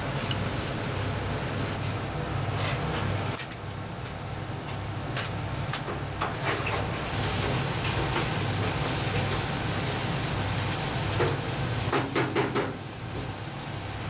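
A pot of water boiling on a gas stove: a steady hiss and bubbling over a low hum. There are scattered light knocks, with a cluster of them about twelve seconds in.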